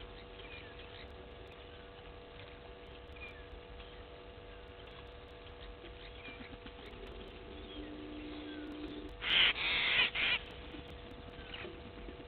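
Bush ambience with faint bird chirps over a steady hum. About nine seconds in, a loud, harsh bird call sounds in three quick parts, lasting about a second.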